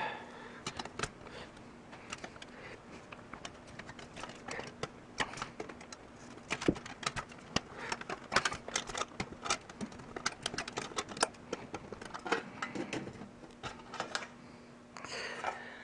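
Irregular light clicks and taps of hand work on a toaster's casing as its side panel is taken off.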